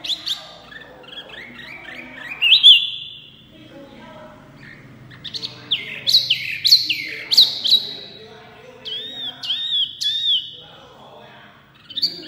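Caged hwamei (wambi mini) singing loudly: a varied run of clear whistled phrases, with a cluster of fast down-slurred notes in the middle and a few arched, repeated notes near the end.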